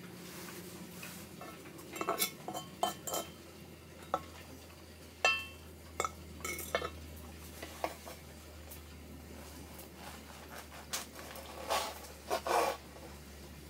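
Cutlery and dishes clinking: a string of separate clinks and knocks, some ringing briefly, over a low steady hum.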